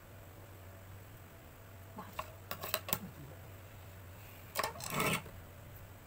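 Paper and a plastic triangle ruler being handled on a guillotine paper cutter: a few light clicks and taps about two seconds in, then a short scraping sweep about a second later, over a faint steady hum.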